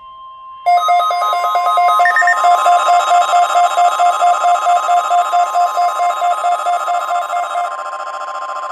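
NOAA Weather Radio 1050 Hz warning alarm tone holding steady. Under a second in, weather alert receivers set off by it join with loud beeping alarms, several pulsed tones at different pitches at about three beeps a second. Some of the beeping stops near the end while the tone carries on.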